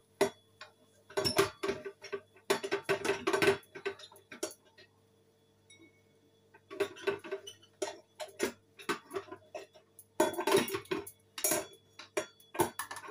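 Rapid clinking and clattering of dishes and cutlery, in three spells with a short pause near the middle, over a faint steady hum.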